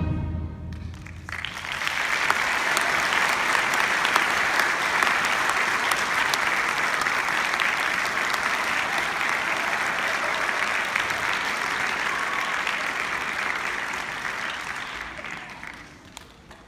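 A concert band's last chord dies away, then an audience applauds: the clapping swells up about a second in, holds steady, and fades out near the end.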